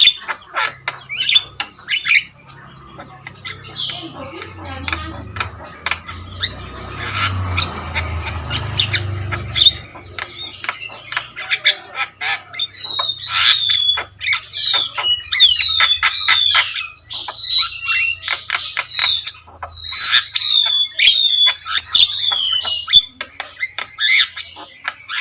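Javan myna singing: a fast jumble of sharp clicks and harsh squawks, then from about halfway a run of repeated falling whistles with a buzzy note near the end.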